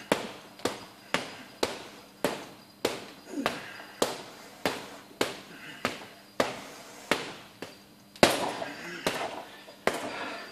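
Boxing gloves punching a FIGHTER heavy bag in a steady run of sharp slaps, about two a second. The hardest punch lands about eight seconds in.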